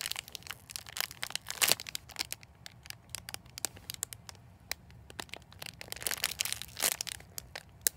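Clear plastic bag crinkling and crackling as a squishy foam bread bun is squeezed inside it. There are many small sharp crackles, with two louder rustles, one nearly 2 seconds in and one near the end.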